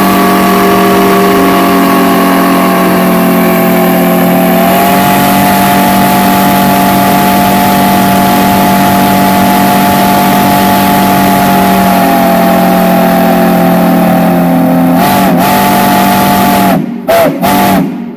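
Large steam whistle blowing one long, very loud chord of several notes at once, the pitch stepping slightly about five seconds in. Near the end it breaks into a few short blasts and then cuts off.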